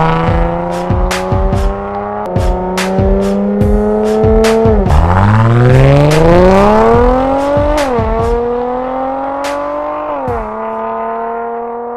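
Range Rover Sport's supercharged 3.0 V6 through an aftermarket valved exhaust, mixed with a music track of held notes and a steady drum beat. About five seconds in, the engine revs up over about three seconds, and its pitch drops sharply near eight seconds and again near ten seconds.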